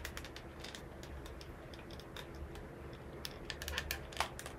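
Irregular light clicks and taps of hard resin ball-jointed doll parts being handled, the limbs knocking and shifting at their joints, busiest near the end.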